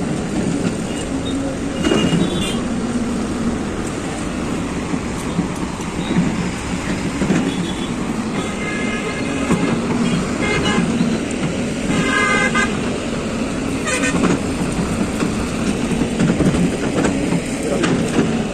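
Road traffic with several vehicle horn honks, the clearest near the middle, over a steady engine rumble from trucks and an excavator.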